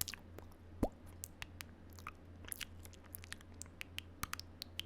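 Close-miked mouth noises: an irregular string of small clicks and bites, with one louder pop a little under a second in.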